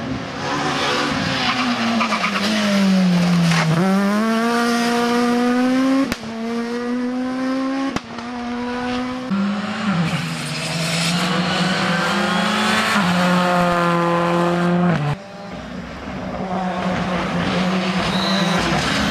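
Rally car engine running hard at high revs, its pitch dropping and climbing again several times as it brakes, shifts gears and accelerates.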